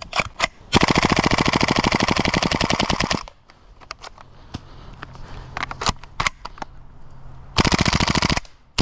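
Propane-powered, gas blowback FN SCAR-style airsoft rifle firing on full auto: one burst of about two and a half seconds with rapid, evenly spaced shots, then a short burst near the end, with a few single clicks in between.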